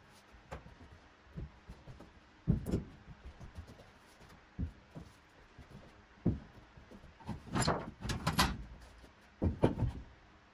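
CV axles, control arms and hub knuckles being set down and shuffled on the workshop floor: scattered knocks and clunks, with a louder run of metal clanks about eight seconds in.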